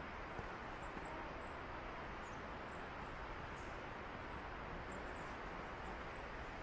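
Steady outdoor hiss with faint footsteps on a packed-snow path.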